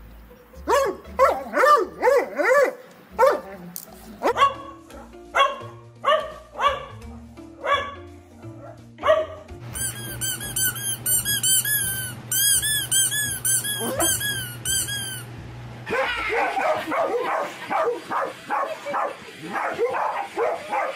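A dog barks repeatedly over background music. In the middle, a squeaky rubber toy squeaks in a rapid run of high squeaks as a dog chews it. Near the end there is more dog barking in quick succession.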